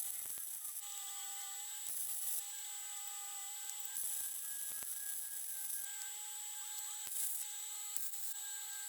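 A power grinder grinding the paint off steel bicycle forks: a steady motor whine that dips and rises a little as the disc bears on the metal, with surges of grinding hiss.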